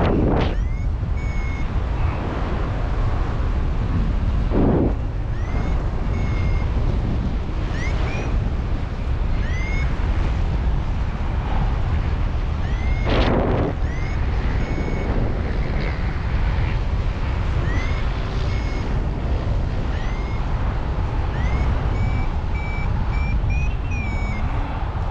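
Paragliding variometer beeping in short beeps and rising chirps every second or two, the sign of the glider climbing in ridge lift, over heavy wind noise on the microphone with a few louder gusts.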